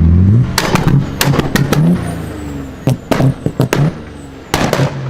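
Modified car exhaust: the engine comes off a high rev about half a second in and settles to a low idle. As the revs drop, the exhaust fires off runs of loud, sharp pops and bangs in three clusters, the last near the end. These are the crackles and backfires of unburnt fuel igniting in the exhaust on deceleration.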